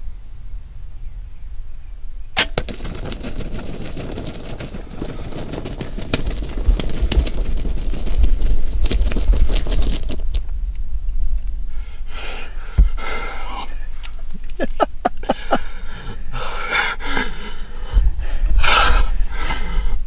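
A Mathews Switchback compound bow fires once with a sharp crack about two seconds in, followed by several seconds of thrashing and wing-flapping as the arrow-hit wild turkey gobbler goes down in the grass. From about halfway on come quick, excited breaths and whispers from inside the ground blind.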